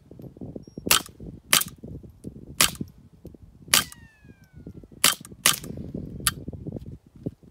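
Semi-automatic .22 rifle firing subsonic rimfire rounds through a three-baffle JK Armament 155R MST kit suppressor: seven suppressed shots at uneven intervals, the last one weaker, over a steady low rumble. From behind the gun, much of the noise seems to come from the action cycling, though the shooter is not sure of this.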